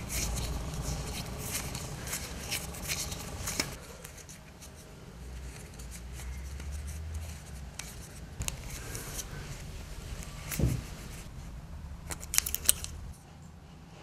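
Hands twisting and plaiting horse-hair fishing line close to the microphone: dry rubbing with a quick run of small sharp clicks in the first few seconds, a single thump about two-thirds of the way through, and a few more clicks near the end.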